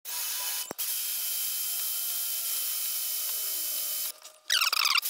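Electric drill mounted on a lathe tool post running steadily, an 11/32-inch bit drilling a bolt hole into a raw steel pulley face. Near the end comes a brief, louder high-pitched squeal.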